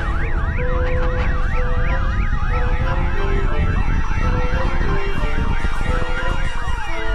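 Earthquake sound effect: a heavy, continuous low rumble with several emergency sirens layered over it, some yelping quickly up and down and others sweeping slowly down.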